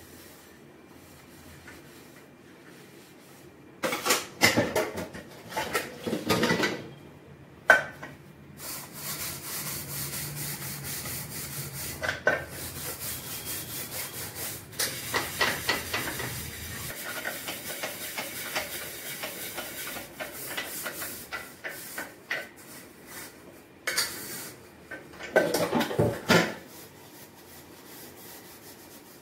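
Steel utensils being scrubbed by hand at a kitchen sink, under a thin stream of tap water. There are rubbing and scouring strokes in clusters, one sharp clank of steel about 8 seconds in, and a long spell of steady scrubbing in the middle.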